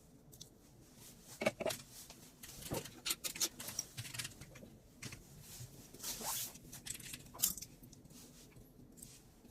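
Irregular light clicks, taps and short rustles of hands handling small hardware parts, with a few sharper knocks scattered through.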